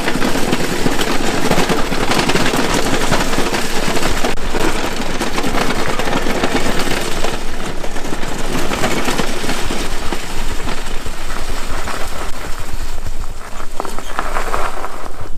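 Cutting edge of a wheelchair-mounted snow plow scraping over the ground with a dense, rapid rattling clatter, smoothing a rut at the edge of the asphalt.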